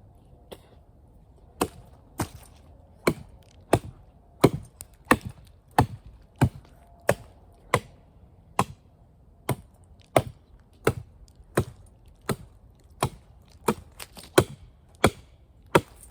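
A blade chopping into a thin green tree trunk to cut a few inches off its end: about twenty sharp, separate strokes, roughly one and a half a second, in a steady rhythm.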